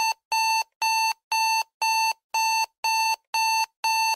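Electronic alarm-clock beeping as the countdown timer runs out at zero: a steady series of identical short, high beeps, about two a second.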